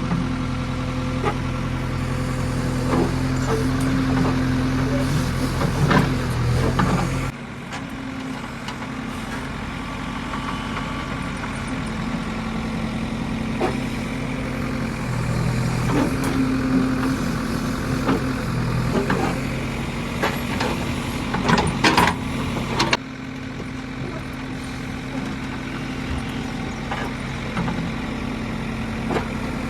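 JCB 3DX backhoe loader's diesel engine running and working under load while digging and loading mud, its hum rising and falling, with occasional sharp metallic knocks. The engine sound drops abruptly twice.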